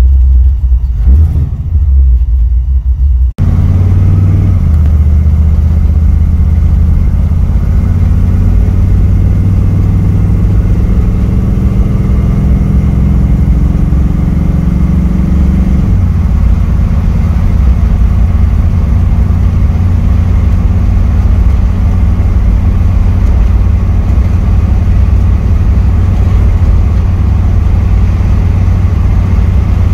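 1959 Chevrolet Bel Air's engine running with a low rumble, then, after a cut about three seconds in, the car driving from inside the cabin. The engine pitch rises slowly as the car accelerates, then holds steady at a cruise of about 35 to 40 mph.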